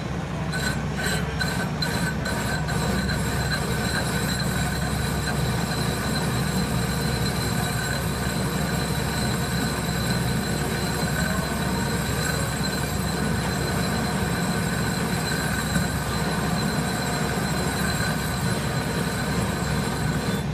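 Metal lathe running with a cutting tool bevelling the end of a spinning metal pipe: a steady machine drone with a high whine from the cut. A run of light ticks, about three a second, comes in the first few seconds.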